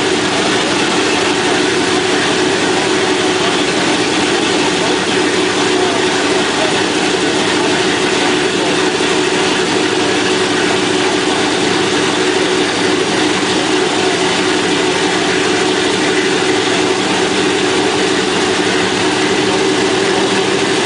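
A B-17's Wright R-1820 nine-cylinder radial engines running steadily after start-up, a loud, unchanging drone.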